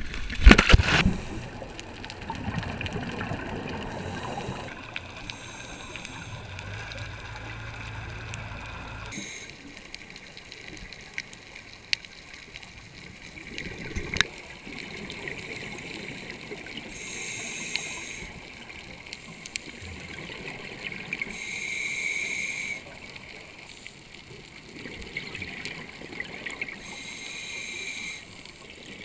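A loud splash as a scuba diver drops from the boat into the sea, then muffled underwater noise with bursts of exhaled bubbles from a scuba regulator every few seconds.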